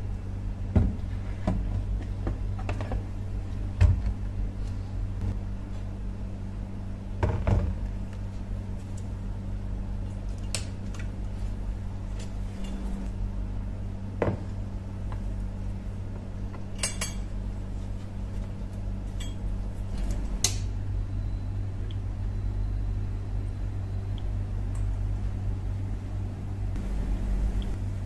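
Steady low electrical hum, with scattered knocks and clicks of a rusty iron hammer head and a steel bar being set into a plastic tub of water for electrolysis. The hum fades for a few seconds in the middle and returns with a sharp click about 20 seconds in.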